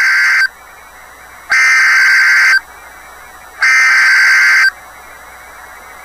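Emergency Alert System SAME header from NOAA Weather Radio: buzzy digital data bursts, the end of one and then two more, each about a second long and a second apart. This is the coded header that opens a severe thunderstorm warning.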